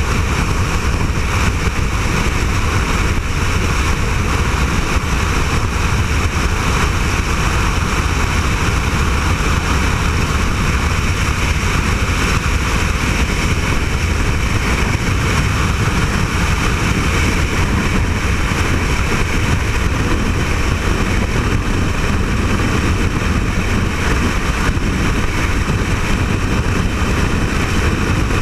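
Loud, steady rush of freefall wind over a skydiver's helmet-mounted camera microphone, unbroken throughout.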